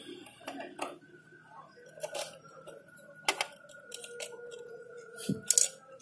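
Screwdriver clicking and tapping against screws and the metal chassis of an all-in-one PC, a string of small metallic clicks with two louder knocks. A faint steady high tone runs under most of it.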